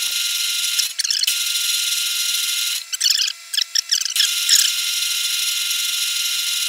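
Craftsman metal lathe running with a steady high whine; it stops briefly about three seconds in and starts up again about a second later.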